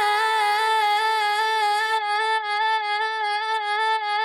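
A woman's sung vowel held as one long, unbroken note with a slight waver in pitch: a vocal stretched into a sustained tone by repeating a short slice of it. A faint breathy hiss over the note drops away about two seconds in.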